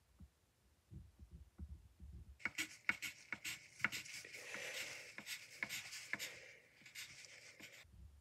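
Pencil scratching on paper in quick short strokes, hatching lines, with sharp ticks as the point strikes the page. It starts about two seconds in, after a few soft knocks, and stops abruptly near the end.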